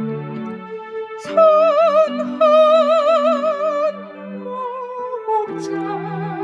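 Electronic keyboard playing a slow hymn: a lead voice with an even, wide vibrato carries the melody over held chords, with new notes and chords entering about a second in and again near the end.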